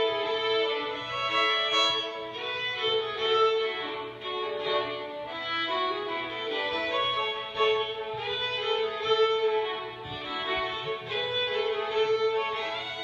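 Two fiddles playing a tune together as a duet, bowed with continuous changing notes.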